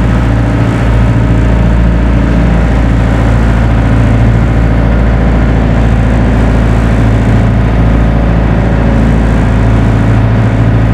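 A vehicle engine running steadily with a loud, low drone.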